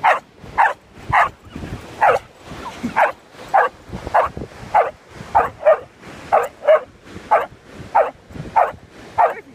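A dog barking over and over in a steady string of short, sharp barks, about one every half second.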